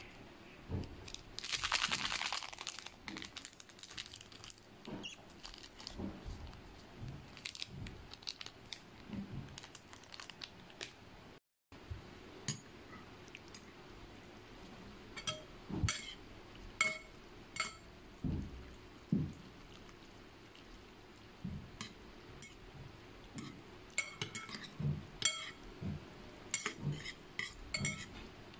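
A plastic seasoning sachet crinkling briefly about two seconds in, then metal chopsticks and a spoon clinking repeatedly against a glass bowl as instant noodles are stirred.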